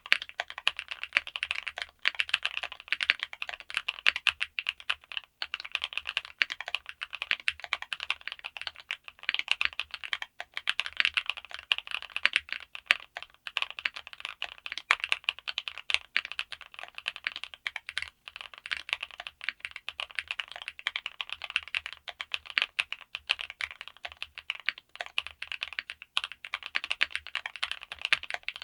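Fast, continuous typing on a TKD Cycle7 gasket-mounted mechanical keyboard with an aluminium case: a dense run of key clicks, broken by a few brief pauses.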